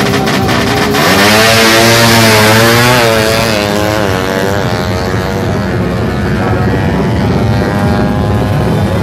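Drag-racing motorcycles, a Kawasaki Ninja R and a Suzuki Satria F, launching hard about a second in. Their engine pitch climbs and drops back with each gear change as they accelerate away, then settles to a steadier, lower drone.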